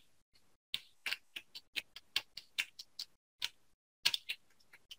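Small sharp clicks and taps, about fifteen at an uneven pace over a few seconds, as a fine metal probe tip is touched and moved across the pads of a laptop logic board.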